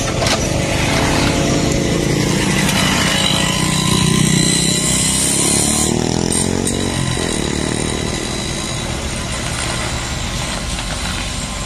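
Hino Profia F17E truck's V8 diesel engine pulling under load as the truck moves off across mud. Its pitch climbs for a few seconds, drops back about seven seconds in, and then runs steadily.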